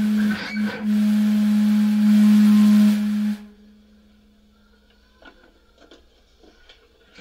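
A single sustained note from an amplified instrument, held with hiss behind it and cut off suddenly about three and a half seconds in, then a few faint clicks and taps.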